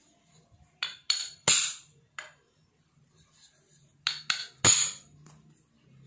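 Metal machine parts knocking and clinking together as they are handled: pillow block bearing housings, a steel shaft and a steel tube. Two quick clusters of sharp knocks, one about a second in and another around four seconds in, each with a short metallic ring.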